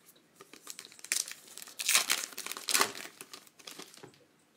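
Plastic trading-card pack wrapper crinkling and tearing as the pack is handled and opened, in several rustling bursts, the loudest about two seconds in and again just before three seconds.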